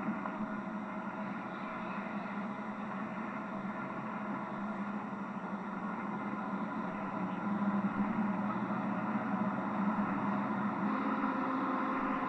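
A moving car's steady engine and road drone, getting a little louder about two-thirds of the way through.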